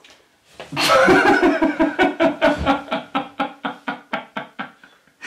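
A person laughing: a long burst about a second in, then a run of short pitched "ha" pulses, about four a second, that slowly fade away.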